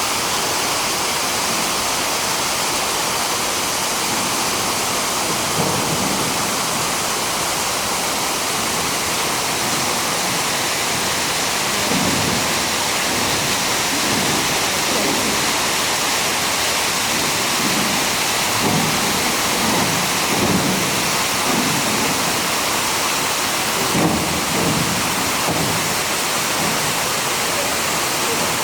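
Manai Falls, a waterfall: water plunging into the gorge, a loud steady rush with irregular low surges every few seconds.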